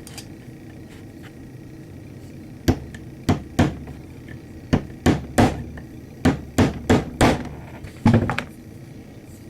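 About eleven sharp hammer taps on a nylon punch, in irregular twos and threes, drifting a tritium rear sight sideways into the pistol slide's dovetail. The sight is press-fitted and is going in tap by tap.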